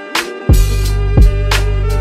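Background music: a beat with a deep, steady bass and heavy kick drum hits. The bass drops out for the first half second, then comes back with a kick.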